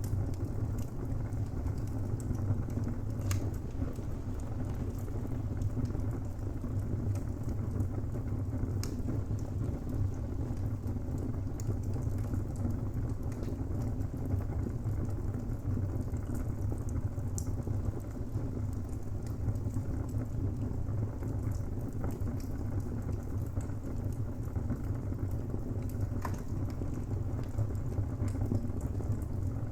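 Wood fire burning in a fireplace: a steady low rumble with a soft crackle, and sharp pops and cracks from the burning timber every few seconds.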